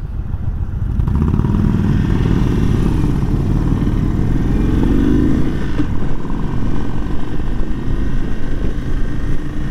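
2022 Indian Super Chief's 111-cubic-inch air-cooled V-twin pulling away from a stop, its note rising for a few seconds and then settling into a steady run.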